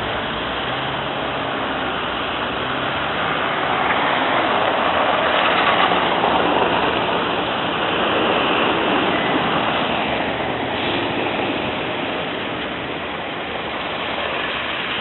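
Snowplow trucks running down a snowy street: steady truck engine noise under a rushing hiss, louder in the middle.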